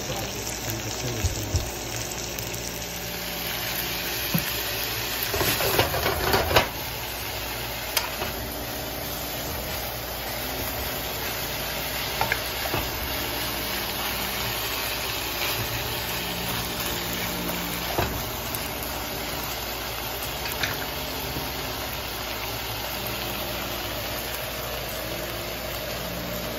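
Sliced onions, bell peppers and tomatoes sizzling in a hot wok, stirred with a wooden spatula, with a spell of louder scraping and clatter about five to six seconds in and occasional clicks of the spatula against the pan.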